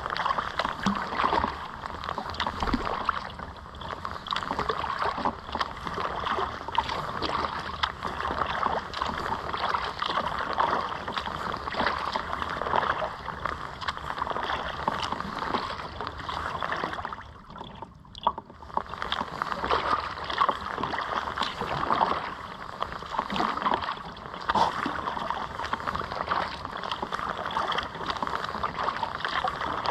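Water splashing and lapping against the hull of a kayak being paddled across open water: a steady wash of small splashes that eases off briefly a little past halfway.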